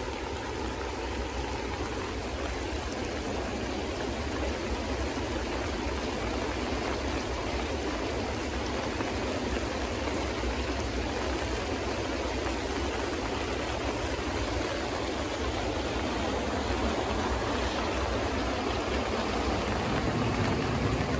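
Muddy floodwater rushing steadily down a creek swollen by rain. The sound grows a little louder near the end.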